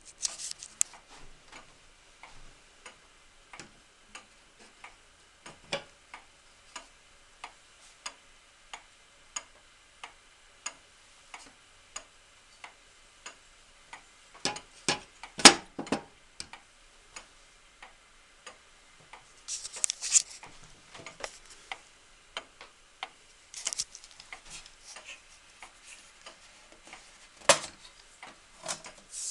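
Antique New Haven long-drop regulator wall clock ticking with its pendulum, an even tick-tock of about three beats every two seconds. Louder knocks and rubbing from the wooden case being handled come in a cluster about halfway through, with another sharp knock near the end.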